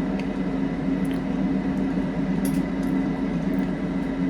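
A steady low mechanical hum, like a fan or running appliance, with a few faint light clicks.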